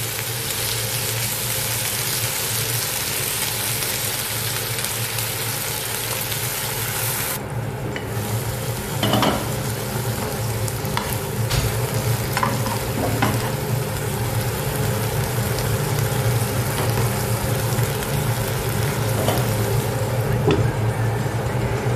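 Baguio beans (green beans) sizzling in a frying pan, a steady frying hiss that eases after about seven seconds. From about nine seconds in, a utensil clicks and scrapes against the pan now and then as the beans are stirred, over a steady low hum.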